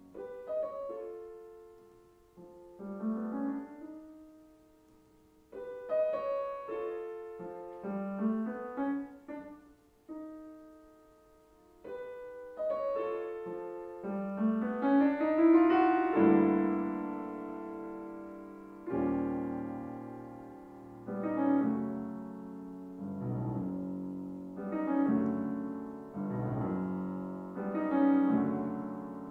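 Grand piano played solo in a slow classical piece: phrases of rising figures that swell and fade, building to the loudest passage about halfway through, then a series of struck chords that each die away.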